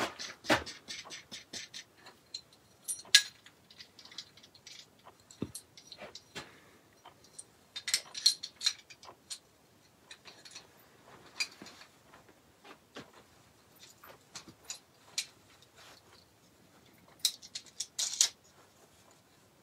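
Small metal clicks, taps and rattles of the parts of a grinder's multi-jig being handled as its seat is taken out and a skew-chisel section fitted, coming in irregular clusters with quiet gaps between.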